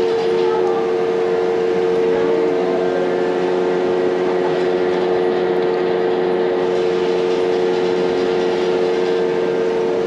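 Airport baggage X-ray scanner and its conveyor belt giving off a steady electric hum at one unchanging pitch while boxed luggage is fed through for screening.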